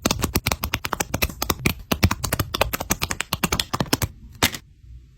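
Rapid run of crisp clicks and crackles from a paper blind bag being handled. It stops about four seconds in, with one last click just after.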